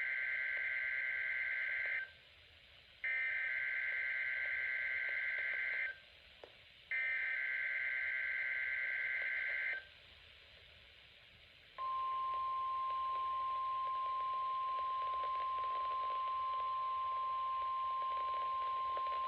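NOAA Weather Radio weekly test: three shrill, warbling SAME digital header bursts, each about three seconds long with a short gap between them. After a pause a steady single-pitch 1050 Hz warning alarm tone starts about twelve seconds in and holds.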